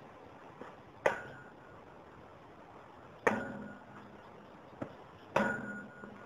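A tall metal frame struck hard three times, about two seconds apart, each blow ringing briefly with a clear metallic tone, with two lighter knocks in between.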